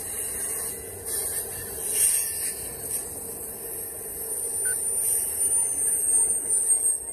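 Freight train cars, autoracks and boxcars, rolling past close by, with a steady rumble and rail noise from the wheels. A thin high wheel squeal joins in during the second half.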